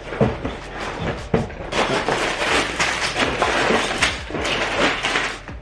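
Plastic Lego pieces clattering and rattling: a dense run of small hard clicks that grows busier after about a second and a half.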